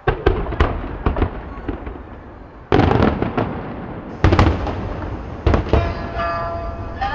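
Aerial fireworks shells bursting in a rapid series of loud, sharp bangs, the heaviest about three seconds in and again just past four seconds. Near the end a shamisen starts plucking the opening of the accompaniment.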